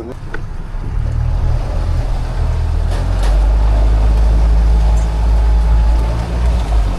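Steady low engine rumble of a vehicle or boat under way, with wind noise; it builds over the first second and then holds.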